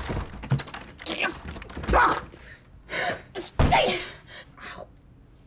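A woman's voice in short wordless gasps and cries, about five bursts, dying away near the end.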